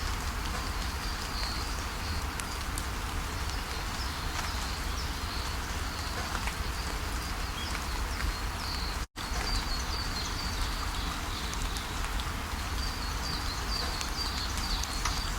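Steady rushing of a waterfall with small birds chirping over it in short, high, repeated chirps, thickest about a second in and again near the end. The sound cuts out completely for an instant about nine seconds in.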